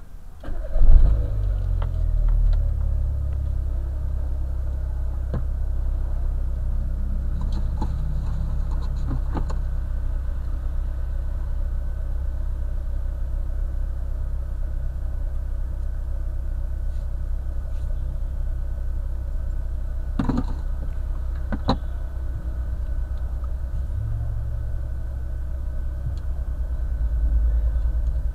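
Car engine starting about a second in, then idling with a low, steady hum. Two short clicks come later on.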